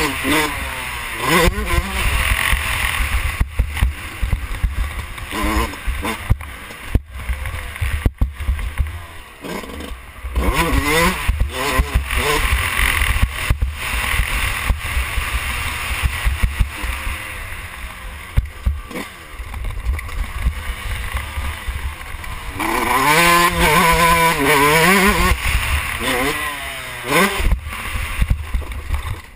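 Yamaha YZ125 two-stroke motocross bike engine revving up and falling back again and again as the rider shifts and rolls off, with wind buffeting the helmet microphone. Near the end comes one longer, louder pull at high revs.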